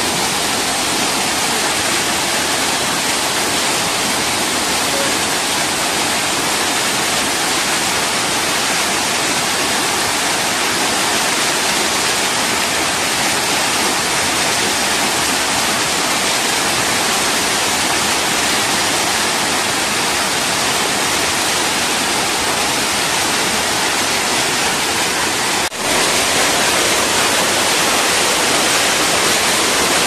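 Waterfall cascading down a sloping rock face close by, a loud, steady rush of white water. There is a momentary drop in level near the end.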